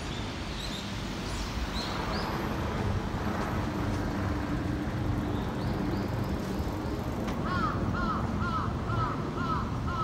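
Birds calling in flowering trees: scattered high chirps in the first half, then a run of about seven repeated arched whistled notes, a little over two a second, in the second half. A steady low rumble of city traffic runs underneath.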